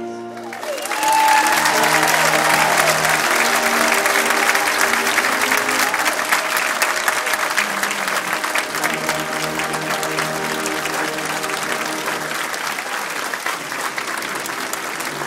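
Large audience applauding, swelling sharply about a second in and easing off slowly, with some cheering in the first few seconds. Music with held notes plays underneath.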